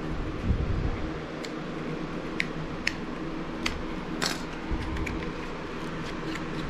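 Scattered sharp clicks and snaps as the stitching threads of an old, brittle leather knife sheath are cut open with a utility knife, with a soft knock about half a second in, over a steady background hum.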